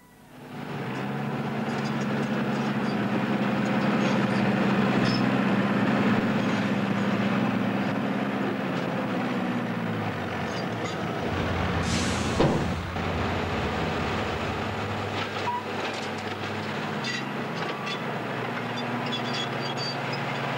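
Tractor engine running under load, its note dropping about ten seconds in. A short, sharp hiss comes about two seconds later, and scattered small clanks run throughout.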